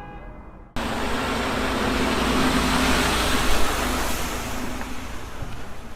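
A motor vehicle's engine and road noise, starting abruptly about a second in, swelling, then easing off. This is a sound effect of a truck driving.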